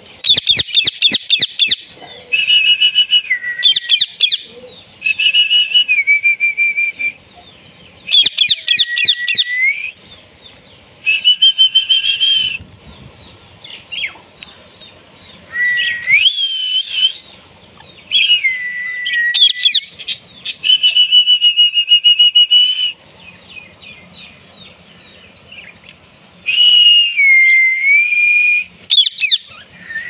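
Indian ringneck parakeets calling loudly in repeated bouts: fast strings of sharp squawks alternate with held whistled notes that dip in pitch.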